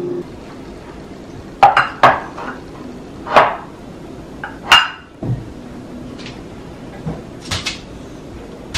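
Ceramic serving bowls and dishes being set down and shifted on a kitchen countertop: a handful of separate knocks and clinks, the loudest about two seconds in and again near five seconds, with softer taps later.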